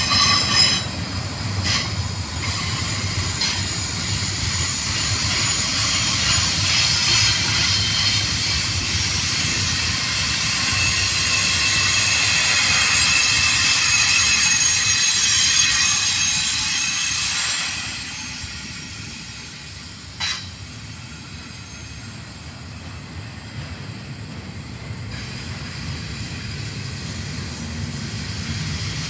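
Double-stack container train's well cars rolling past, with steady rumble and high, steady wheel squeal that fades about two-thirds of the way through, leaving a quieter rolling sound. A single sharp click comes shortly after.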